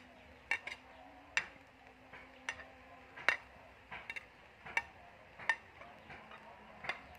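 A cooking utensil clinking and tapping against a glass plate and the wok, about a dozen sharp clicks at irregular spacing, roughly one every half second to second, as food is scraped into the pan.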